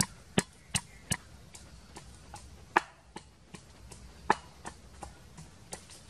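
Wooden pestle pounding garlic, shallots and chili in a wooden mortar: a run of sharp knocks, quick at first, then slower and more spaced out, with the hardest strikes in the middle.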